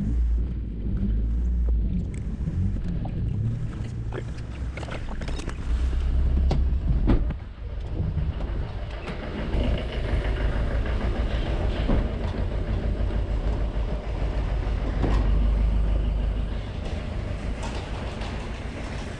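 Car in motion heard from inside the cabin, with engine and road rumble, then street noise with wind rumble on a body-worn camera. Scattered knocks and bumps.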